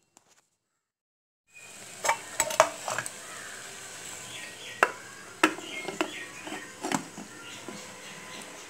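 A metal spoon knocking and scraping against the inside of a pressure cooker, with irregular sharp clinks, over the steady bubbling hiss of soup on the boil. It starts about a second and a half in.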